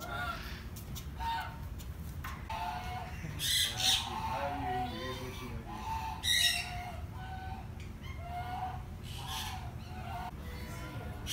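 Sulphur-crested cockatoo calling: a string of short calls broken by loud, harsh screeches, the loudest about three and a half and six and a half seconds in.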